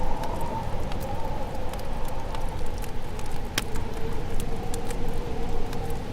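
Wood fire crackling, with scattered sharp pops, the loudest about three and a half seconds in, over a steady rushing background and a wavering drone.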